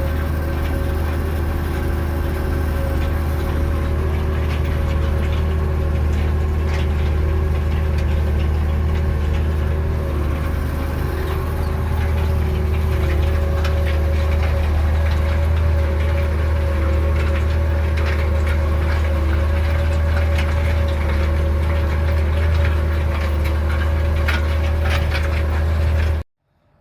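Tractor engine running steadily while pulling a pigtail cultivator, with a strong low hum; it cuts off abruptly near the end.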